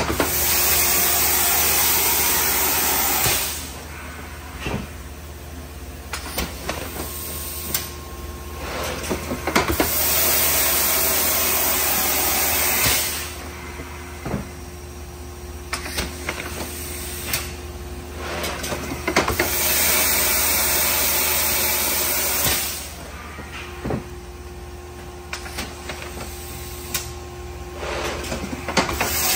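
A plastics-processing machine running through a repeating cycle. A loud hiss of air lasts about three seconds and comes three times, roughly ten seconds apart, with quieter stretches of clicks and knocks between them.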